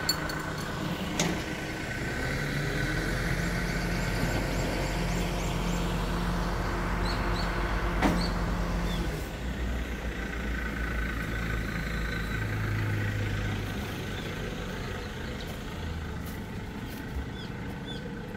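Crane truck's engine idling with a steady low hum that fades after about nine seconds, with a couple of sharp knocks and small birds chirping.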